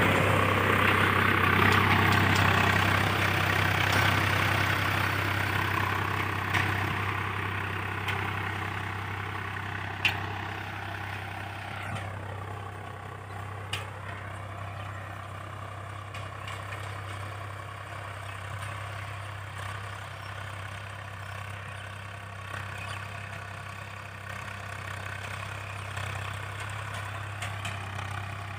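Tractor engine running steadily, growing fainter over the first dozen seconds and then holding level. Two short sharp clicks are heard around the middle.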